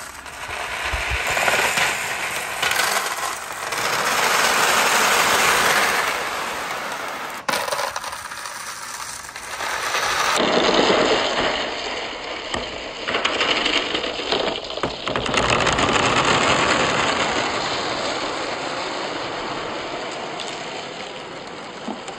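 Hundreds of glass marbles rolling down a wooden-sided pegboard slope, a dense, continuous clinking rattle that swells and fades in waves and dies away near the end.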